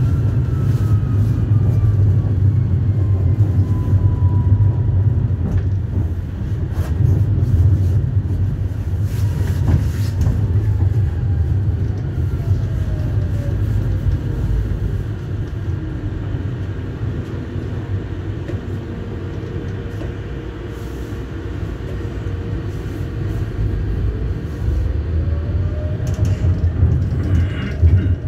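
Electric tram running on rails: a steady low rumble of wheels and track, with the electric drive's whine gliding down in pitch as the tram slows through the middle and rising again as it picks up speed near the end.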